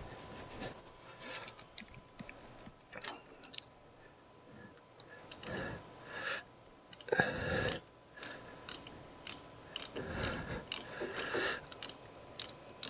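Allen key and metal door-handle hardware being worked by hand, with irregular clicks, taps and short scrapes. The louder scraping comes in clusters about five, seven and ten seconds in.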